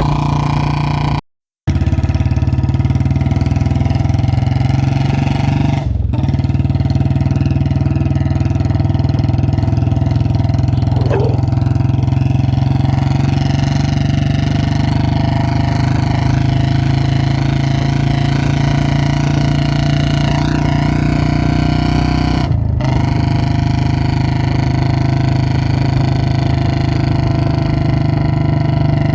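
Royal Enfield Bullet BS4's single-cylinder engine running steadily, mostly at idle, through a short bottle silencer exhaust. The sound cuts out briefly near the start and breaks twice more.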